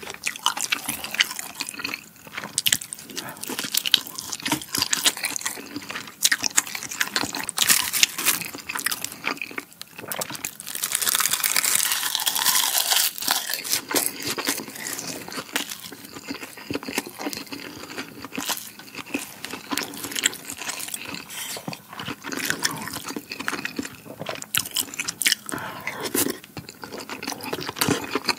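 Close-miked eating sounds: wet chewing and smacking of canned ham, rolled omelette and rice, with short clicks of chopsticks and a spoon against the dishes. A louder, denser stretch of eating noise lasts about three seconds a little before the middle.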